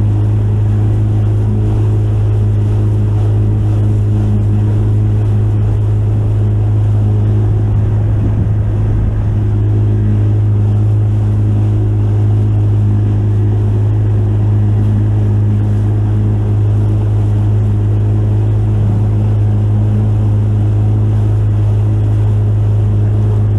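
Boat motor running at a steady speed: a loud, even, low drone that does not change pitch.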